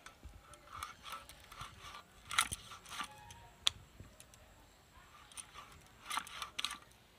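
Aar catfish being cut on a boti blade: scattered crunches and clicks as pieces of fish are pushed through the blade. The strongest crunch comes about two and a half seconds in, with a sharp click shortly after and a quick cluster of cuts a little after six seconds.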